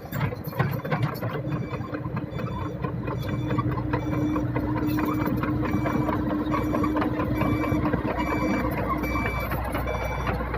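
Heavy earthmoving machine's diesel engine running steadily while its travel/back-up alarm beeps repeatedly.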